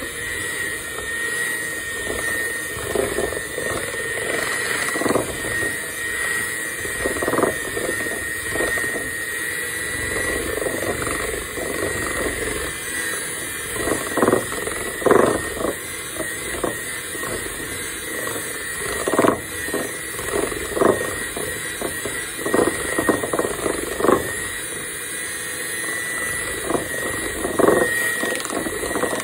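Electric hand mixer running steadily with a high motor whine, its twin beaters churning thick brownie batter, with irregular clattering as the beaters knock and scrape against the bowl.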